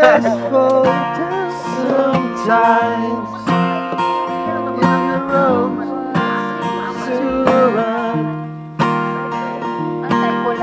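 Cutaway acoustic guitar being strummed in chords, with a voice singing along.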